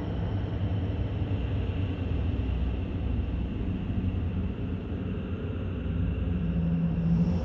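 Ambient synthesizer drone drenched in reverb: a dense low bed with faint steady high tones above it. Near the end a steady low tone swells up and a higher shimmer comes in.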